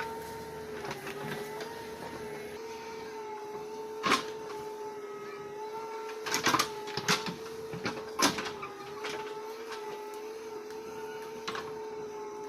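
Backhoe loader working: a steady mechanical whine, wavering slightly in pitch, with several sharp knocks and clacks around the middle.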